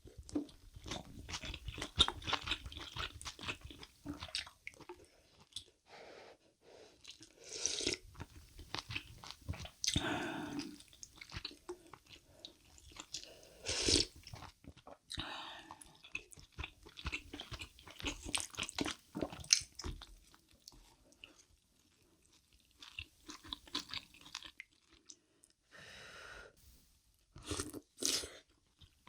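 Close-miked eating sounds: chewing with repeated crunchy bites, coming in runs with a few louder separate bites and short pauses between mouthfuls.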